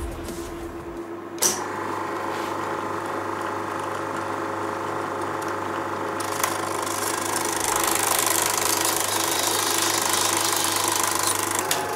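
Eumig S 9100 super 8 sound projector switched on with a click about a second and a half in, then its motor and film transport running steadily, growing a little louder about eight seconds in.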